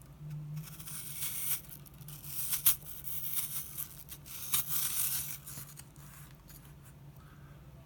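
Victorinox vertical vegetable peeler shaving peel off a vegetable: several rasping scraping strokes over about five seconds, with a sharp click in the middle. The cut is thin and fast.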